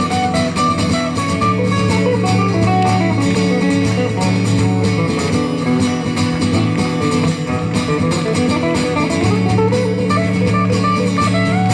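A live band plays an instrumental passage between sung lines, led by guitar.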